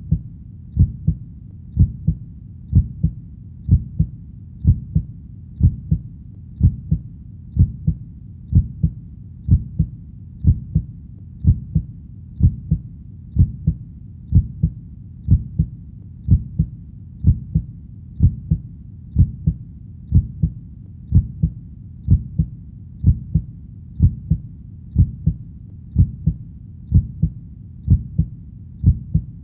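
Heartbeat sound: a steady, even rhythm of low double thumps (lub-dub), about one beat a second, over a faint low background hum.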